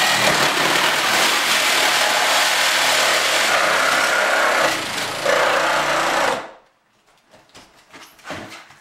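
Handheld power saw cutting into drywall and wood framing along a 2x4, chopping through the nails. It runs steadily for about six seconds, eases briefly near five seconds, then stops suddenly.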